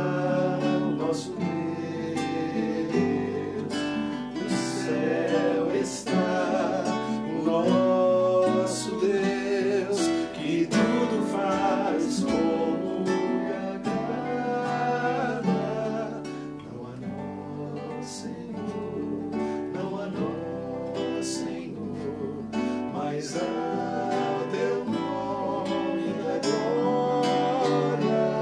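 Acoustic guitar playing a song, strummed and picked, with a singing voice at times.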